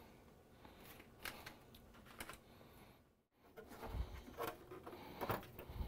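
Faint handling clicks and light knocks of a signal generator's sheet-metal top cover being gripped and lifted off the chassis. The sound cuts out briefly about halfway, then the knocks come more often.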